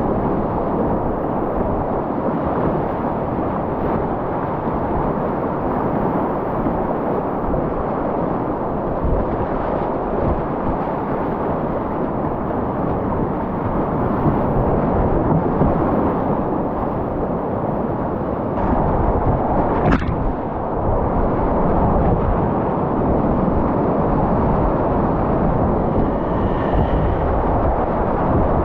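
Whitewater rapids rushing and splashing around a kayak, heard close up from the cockpit as a loud, steady wash of water noise. A single sharp knock sounds about twenty seconds in.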